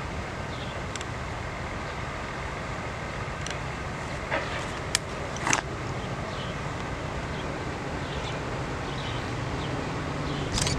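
Metra diesel locomotive approaching at the head of a commuter train: a steady low engine rumble that grows louder near the end, with a few sharp clicks midway.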